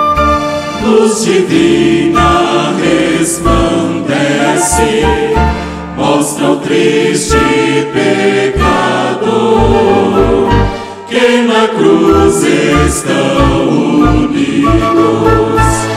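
A group of men singing a gospel hymn into microphones, with a choir behind them, accompanied by keyboard and acoustic guitars. There is a short break between phrases about eleven seconds in.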